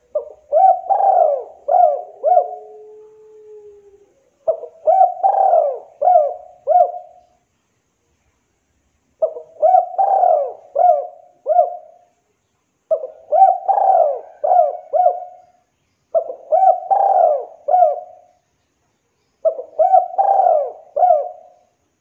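Spotted dove (tekukur) cooing: it repeats its phrase of several short, quick coos six times, with pauses of one to two seconds between phrases.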